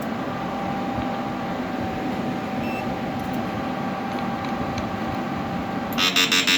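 Electric fishing inverter with large transformers running under load: a steady electrical hum with a thin whine over it. Near the end a much louder, rapidly pulsing high buzz starts.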